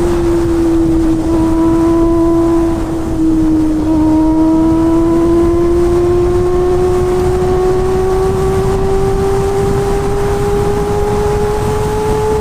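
Kawasaki ZX-25R's 250 cc inline-four engine running at high revs with a high, steady note; the pitch sags slightly, breaks briefly about four seconds in, then climbs slowly, over a low rumble.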